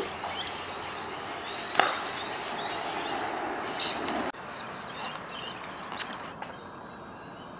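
Outdoor background noise with faint bird chirps and a few light knocks; the noise drops suddenly about four seconds in.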